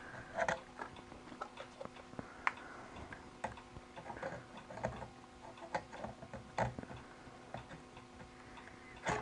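Irregular small clicks and knocks of camera-rig hardware being handled while a cable is fitted into a connector, over a faint steady hum.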